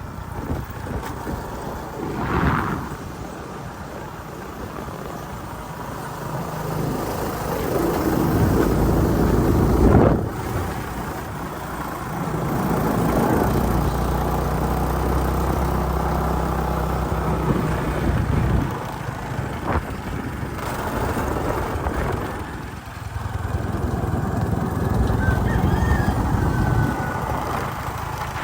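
Motorcycle engine running while riding, with wind noise over it. The engine note holds steady for several seconds at a time and breaks off a few times.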